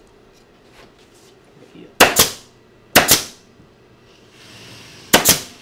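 Staple gun firing 9/16-inch staples into a wooden sofa frame: three sharp shots, about one and two seconds apart. The staples hold the glued frame joint together while the glue cures.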